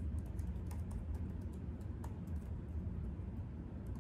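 Typing on a 16-inch MacBook Pro's built-in keyboard: a quick run of key clicks that thins out to a few scattered keystrokes after about a second and a half, over a steady low hum.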